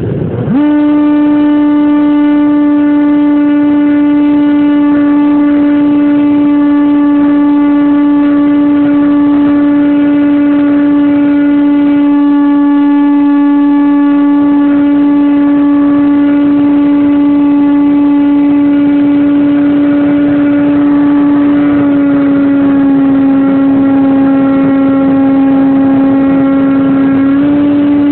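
Homemade FPV model airplane's motor and propeller picked up by the onboard camera, throttled up abruptly about half a second in and then holding a steady, high-pitched drone. The pitch sags slightly about 22 seconds in and climbs back near the end.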